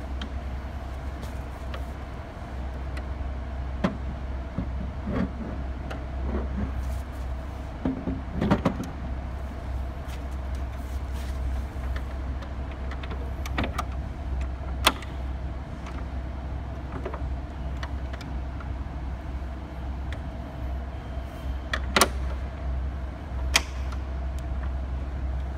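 Scattered sharp clicks and knocks of LED display cabinets being fitted together and their locking latches worked, over a steady low hum. The loudest clicks come about 15 seconds and 22 seconds in.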